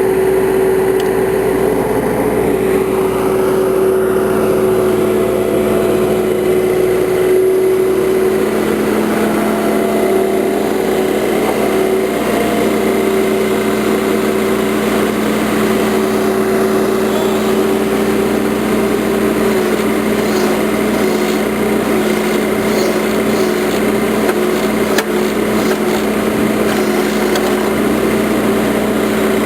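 Engine of a tree-digging machine running at a steady speed.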